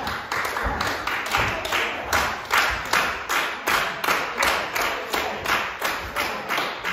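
Audience clapping together in a steady rhythm, about two and a half claps a second.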